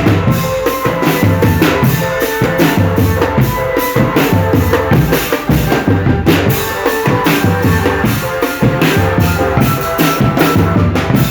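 Marching drumband playing a steady rhythm on bass and snare drums, with a melody carried over the beat.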